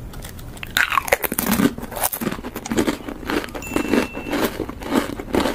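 Irregular crunching and crackling, a quick uneven run of crisp snaps and rustles.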